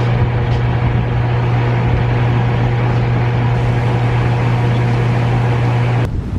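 Diesel engine of heavy demolition equipment running steadily with a loud, low drone, over a rough haze of noise; the drone stops abruptly about six seconds in.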